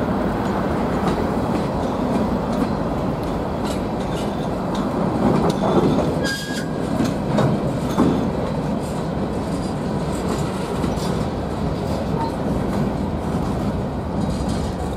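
Mixed freight train of hoppers, gondolas and flatcars rolling past: steady rumble of steel wheels on rail with repeated clicks over the rail joints, and a brief wheel squeal about six seconds in.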